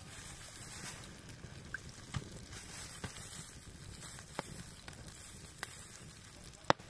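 Floured pieces of pike frying in oil in a pan over an open campfire: a steady sizzle with scattered sharp crackles, and one loud crack near the end.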